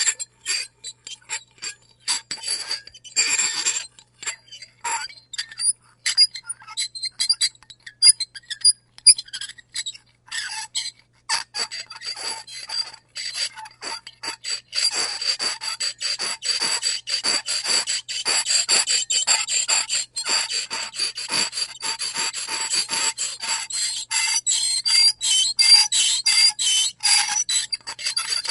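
A fork scraping across a plate in many short, quick strokes, with a piercing high-pitched squeal. The strokes come in scattered bursts with gaps at first, then run almost without a break from about halfway through.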